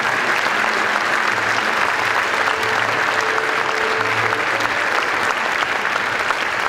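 A large theatre audience applauding steadily during the curtain call at the end of a concert.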